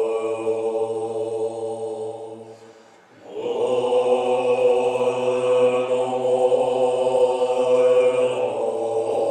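Tibetan Buddhist monks chanting in the low multiphonic throat-singing style: a deep held drone with a high overtone ringing above it. The chant dies away about three seconds in, then comes back in strongly and holds.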